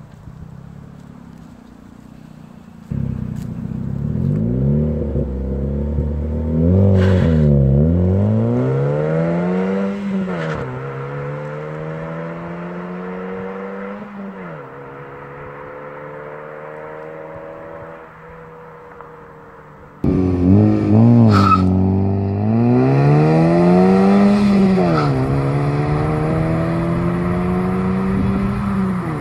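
Opel Corsa C GSi's 1.8-litre 16-valve four-cylinder engine accelerating hard through the gears: revs climb and drop sharply at each upshift, hold steady, then fall away as it eases off. Near the end it comes back in loudly, pulling up through two more upshifts.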